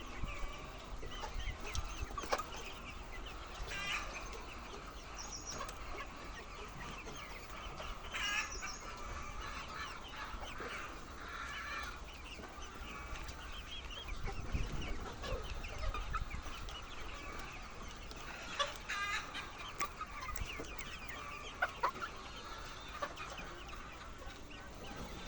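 A flock of laying hens clucking together in a continuous overlapping chorus, with a few louder calls standing out now and then.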